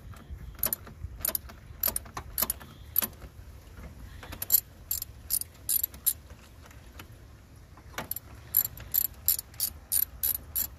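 Hand ratchet wrench clicking in runs as a 10 mm bolt is loosened, about three clicks a second, with short pauses between strokes.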